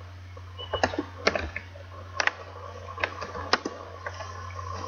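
Computer keyboard typing: a handful of separate keystrokes at irregular intervals, over a steady low hum.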